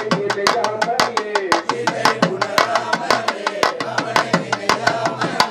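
Music with fast, steady drumming, about eight strikes a second, under a wavering melody line.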